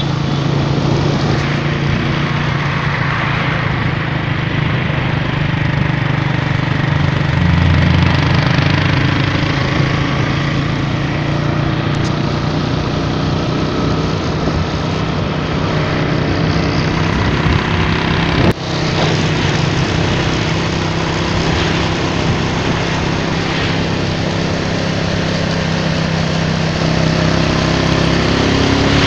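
Motorcycle engine running at a steady cruise, heard from on the moving bike with wind and road noise over it. There is one brief dropout about two thirds of the way through.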